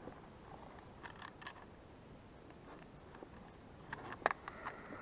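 Quiet outdoor background with a few faint clicks and taps, a small group about a second in and sharper ticks near the end.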